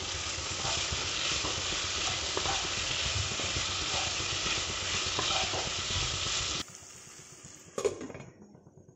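Cauliflower and potato frying in masala in a kadai, sizzling steadily while stirred with a wooden spatula, with a few light knocks of the spatula. The sizzle cuts off suddenly, and about a second later a glass lid knocks once onto the pan.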